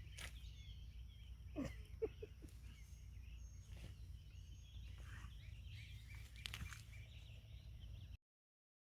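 Faint outdoor garden ambience: a steady low rumble with a few faint chirps and scattered soft clicks, cutting off suddenly about eight seconds in.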